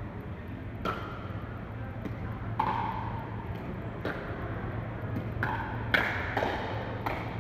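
Plastic pickleball being hit back and forth with paddles during a doubles rally: a sharp pock at each hit or bounce, about seven in all, coming faster near the end as the players volley at the net.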